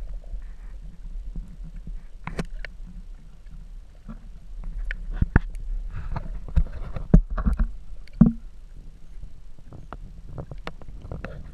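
Muffled underwater sound from a camera in a waterproof housing: a steady low rumble of moving water with scattered sharp clicks and knocks.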